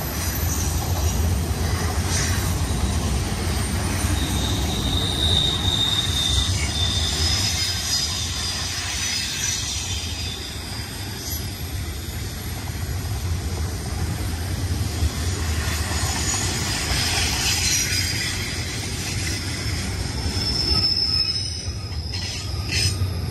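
Double-stack container train of well cars rolling past close by: a steady low rumble of wheels on rail, with brief high-pitched wheel squeals about five seconds in and again about twenty seconds in.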